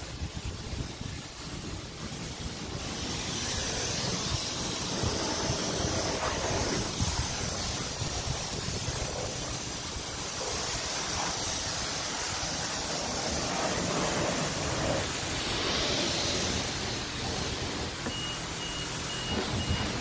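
High-pressure wand at a self-serve car wash spraying water onto a car: a steady hiss of spray. Near the end the bay's timer starts a high beeping, the warning that the paid time is running out.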